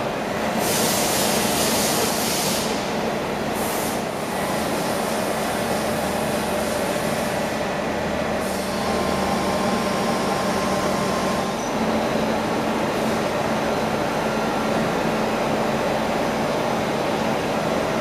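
Juaristi TS 1 CNC horizontal machining centre running under power: a steady mechanical hum, with a hiss that comes and goes during the first several seconds.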